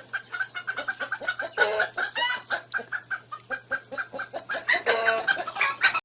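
Animal calls: rapid short clucking-like notes, about five a second, with louder drawn-out calls twice, near two seconds and near five seconds in, over a steady low hum.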